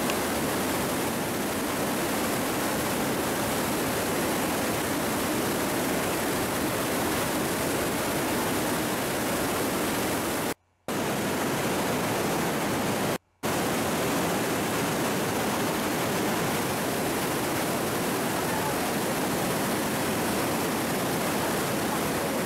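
Steady rushing of the glacial meltwater river through the rock gorge. It cuts out to silence twice for a moment, a little after halfway.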